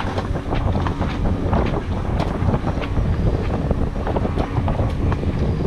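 Wind rumbling on the microphone of a yacht under sail, with a rapid irregular clicking from a sheet winch being ground.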